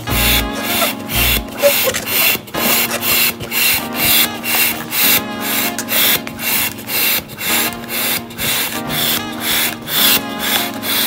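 Balloon hand pump pushing air into a latex balloon, a rasping whoosh with each stroke, about two strokes a second.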